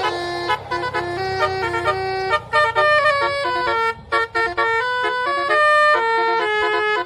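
Bus 'telolet' horn, a set of musical air horns, playing a quick tune of short stepped notes. A bus engine rumbles low under the first couple of seconds.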